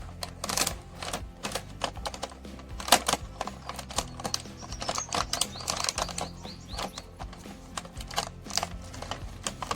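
Irregular plastic clicks and taps as small toy cars and their packaging are handled, over background music.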